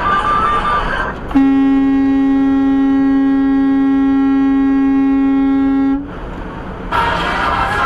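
Semi truck's horn blown in one long steady blast of about four and a half seconds, a single held pitch, aimed at a car that has cut in and slowed in front. Background music plays before and after it.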